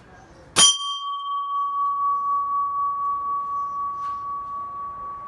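An air-rifle pellet strikes a bell-shaped metal target with a sharp metallic hit about half a second in, and the target rings on with one clear tone that wavers in loudness and slowly dies away.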